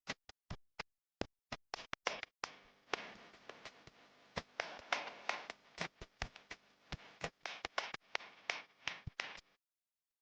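Raindrops tapping irregularly on a hard surface, joined by a steady hiss of rain about two and a half seconds in; the sound cuts off abruptly near the end.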